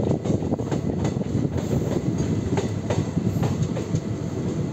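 Chetak Express passenger train running along the track, heard from the side of a coach: a steady rumble of wheels on rail, broken by many quick irregular clicks.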